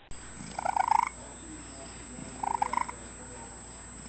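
Cat purring, a rough pulsing sound that comes in short bursts about every two seconds, over a steady high whine.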